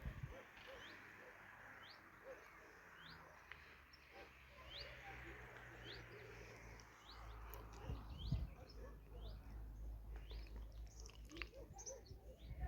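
A small bird chirping: short rising chirps repeated over and over, roughly one or two a second, over faint outdoor background noise.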